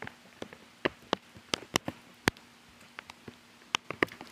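Raindrops falling close to the microphone: scattered, irregular sharp ticks, the loudest a little past two seconds in.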